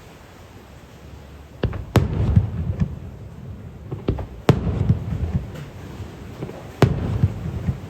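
Aerial firework shells bursting overhead: about five sharp bangs, the three loudest roughly two, four and a half and seven seconds in, each followed by a low rumbling echo.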